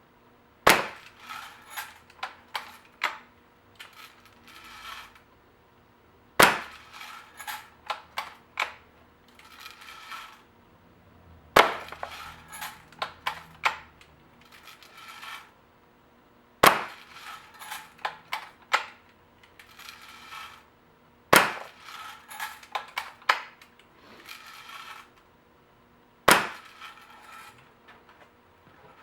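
A Daisy Red Ryder spring-air BB gun fired six times, about five seconds apart. Each sharp crack is followed by a run of metallic clicks and rasps as the lever is worked to cock it for the next shot.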